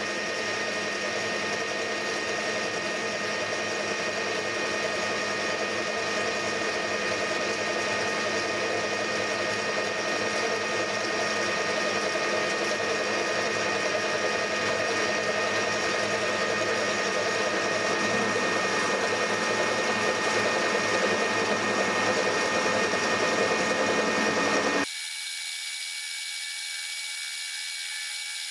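Soviet-made metal lathe running under power with a steady gear whine, turning down the outer diameter of a steel part. The machine sound cuts off abruptly near the end, leaving a quieter, thinner sound.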